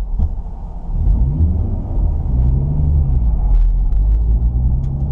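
Car engine and road rumble heard from inside the cabin. The engine note rises as the car pulls away, about a second in, then settles into a steady low drone while driving.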